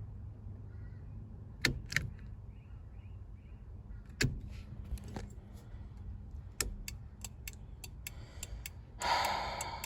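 Car turn-signal flasher clicking irregularly: a few lone clicks, then a short run of quicker clicks about three a second that stops again. The signals click on only some of the time, a fault in the turn-signal circuit. A brief rustle near the end.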